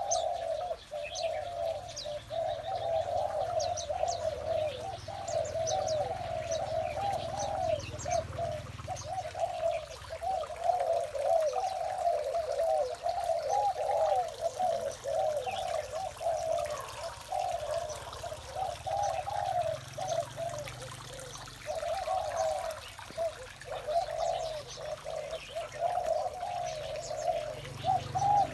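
Spotted doves cooing over and over in a dense, almost unbroken run of low coos. Small birds chirp faintly through about the first half.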